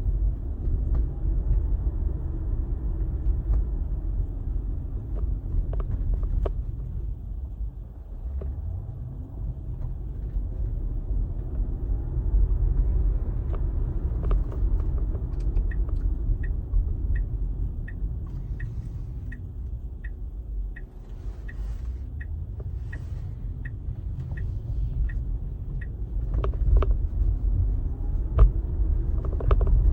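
Road and tyre rumble inside a moving Tesla's cabin. In the second half a turn signal ticks steadily, about every two-thirds of a second for some ten seconds.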